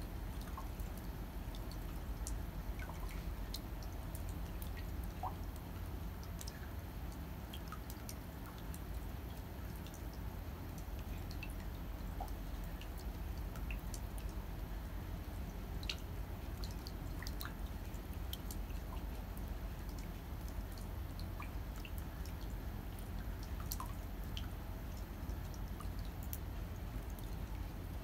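Winter rain dripping: scattered, irregular drops ticking over a steady low background noise.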